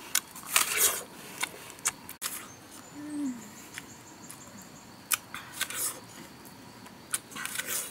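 Crisp bites into a raw apple and chewing, coming in a few crunchy spells. A short, low, falling call, like a hoot, about three seconds in.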